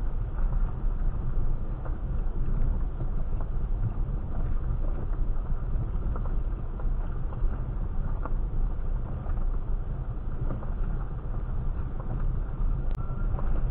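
Steady low rumble of a 2017 Suzuki Vitara diesel creeping uphill in first gear at idle, with no throttle: the TCSS creep function holding walking pace, with tyres rolling over gravel and scattered small ticks.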